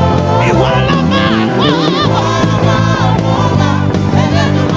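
Gospel worship music: a singer's wavering, melismatic vocal runs over a steady electric bass line and sustained chords.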